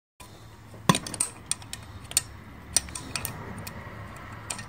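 Sharp metallic clicks and clinks of a homemade pipe-style valve spring compressor on a cylinder head, as the valve spring is pushed down and the retainer and keepers are worked loose. The clicks come irregularly, the loudest about a second in, over a steady low hum.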